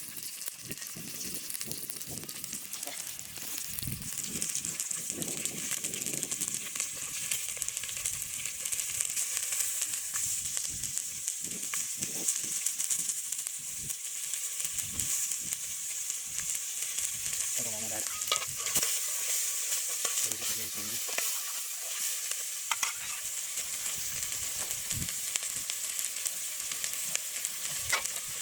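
Food frying in a pan: a steady sizzle, with scattered clicks and knocks from stirring.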